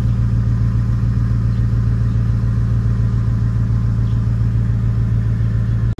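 An engine running steadily at constant speed: an even, low drone with overtones that does not change in pitch and cuts off abruptly at the end.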